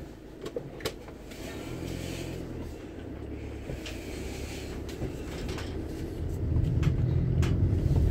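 Low rumble of a motor vehicle's engine, growing louder over the last couple of seconds, with a few sharp clicks scattered through.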